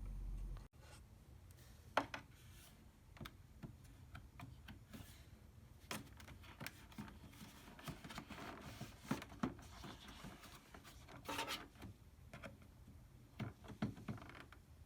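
Faint handling noise: scattered clicks, taps and rubbing, with a sharper click about two seconds in and a longer stretch of rubbing near the end.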